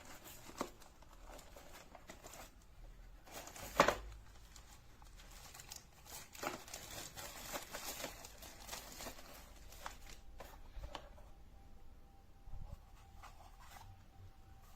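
Crinkling and rustling handling noises with scattered clicks, the loudest a sharp knock about four seconds in.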